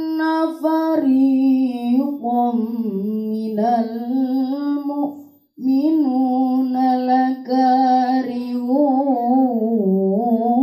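A boy chanting a Qur'an recitation into a microphone, in long held, ornamented phrases with a short breath pause about five seconds in.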